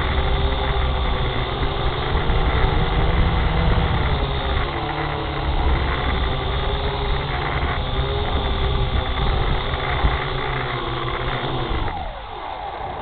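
Small quadcopter drone's motors and propellers humming with a wavering pitch as it descends. About twelve seconds in, the rotors spin down with a falling whine as it touches down.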